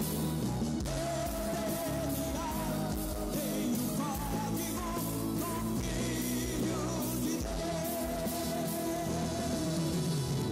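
Live gospel rock band music: a male lead voice sings over guitar, bass and drums, with a steady beat.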